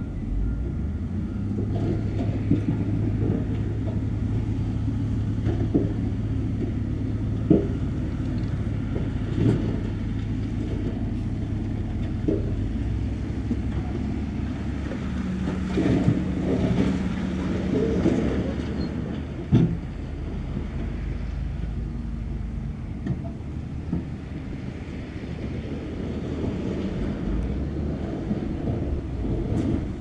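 Heavy diesel earthmoving machinery running, a steady engine drone with scattered clanks and knocks of metal and rock. The engine note changes about halfway through.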